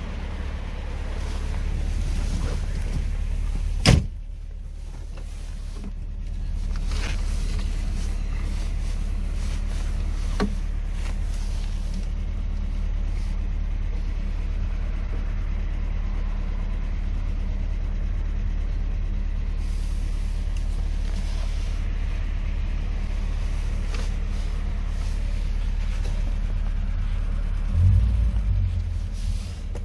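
Fiat 125p 1300's four-cylinder engine idling steadily. A single sharp knock comes about four seconds in, and the sound grows briefly louder near the end.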